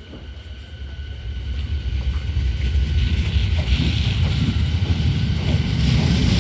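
Electric commuter train of two coupled four-car sets approaching, the rumble of its wheels on the rails growing steadily louder, with a rising hiss and a faint steady whine above it.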